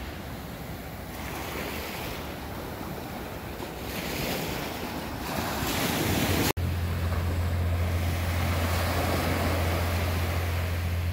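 Small Atlantic waves breaking and washing up a sandy beach, the surf swelling and easing every second or two, with wind buffeting the microphone. About two-thirds through there is a brief sudden dropout, after which a steady low wind rumble is louder.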